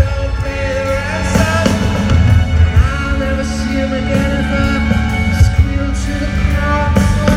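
Rock band playing live in an arena, with a male lead vocal singing over the band.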